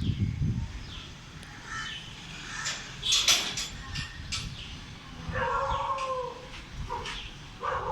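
Small birds calling in a tree: short, high chirps that fall in pitch, with a busy flurry of chirps and clicks about three seconds in. A louder, lower, drawn-out call comes a little past the middle.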